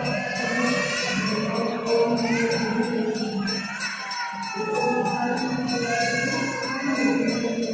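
Music playing: a song with singing voices and a steady jingling beat from a tambourine or sleigh bells.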